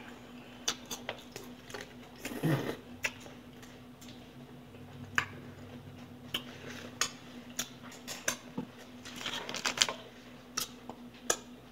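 Eating utensils clicking and scraping against a bowl of food in irregular short knocks while the food is stirred and eaten, over a faint steady hum.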